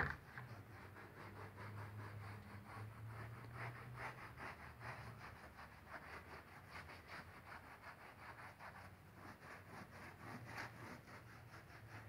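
Damp sponge scrubbing across a grouted stained-glass mosaic, wiping off the excess grout: faint rubbing and scratching strokes in a quick, even rhythm of about three a second.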